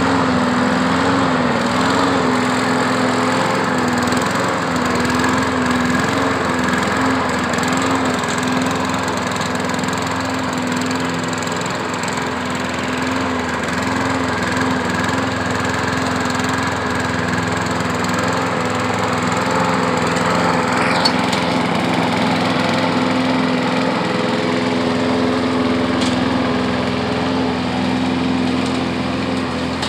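Craftsman walk-behind lawn mower's small engine running steadily, its pitch wavering slightly. It now runs after its flywheel key was replaced following a hard strike on the blade.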